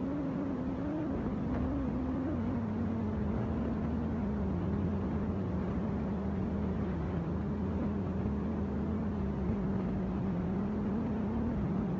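An engine running steadily, its hum dropping slightly in pitch about two seconds in and then holding.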